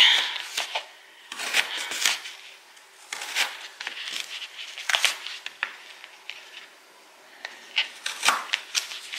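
Paring knife slicing through raw, peeled sweet potato on a paper plate: irregular cuts and short clicks of the blade against the plate, with quiet gaps between strokes. The sweet potato is firm and hard to cut.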